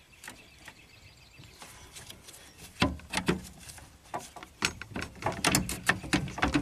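Irregular sharp plastic clicks and knocks, starting about three seconds in, as a gloved hand grips and shifts the plastic-cased NiMH cell modules of a hybrid's high-voltage battery pack.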